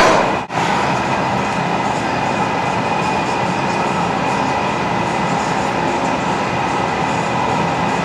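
Glass studio furnace burners and blowers running with a steady noise and a constant hum. The sound cuts out for an instant about half a second in.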